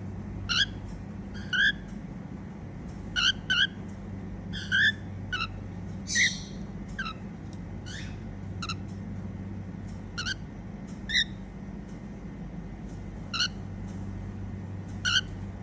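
Female cockatiel giving short, high chirps, singly and in quick pairs, about a dozen over the stretch, some sliding up or down in pitch. A steady low hum runs underneath.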